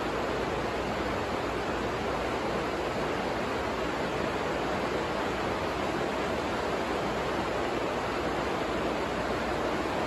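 Steady rain falling on a plastic-covered hoop house, an even hiss with no let-up.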